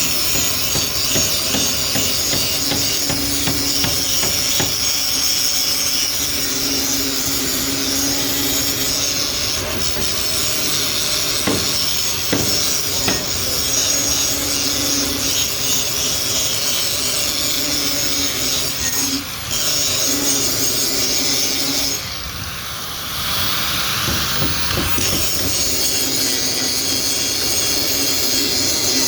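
Angle grinder grinding metal, a continuous loud hiss-and-scream with short let-ups about two-thirds of the way through as it comes off the work.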